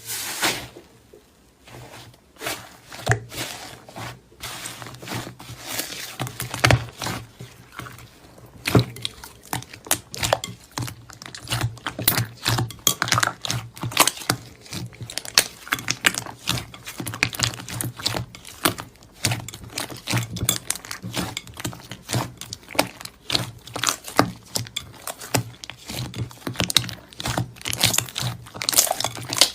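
Clear mango slime being squeezed and stretched by hand: a dense, irregular stream of small clicks and pops.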